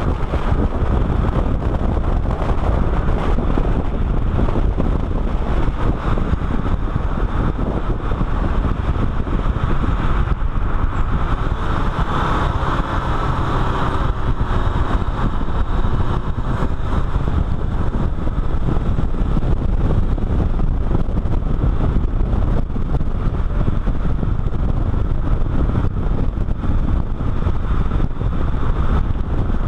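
Car driving at speed on a track, heard from a camera mounted outside low on its flank by the front wheel: steady road and tyre roar with wind rushing over the microphone.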